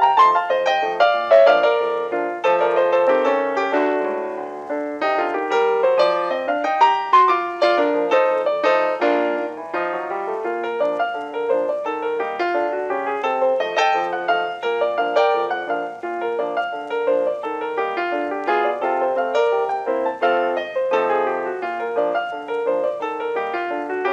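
Background piano music: a lively solo piano playing a quick, busy run of notes.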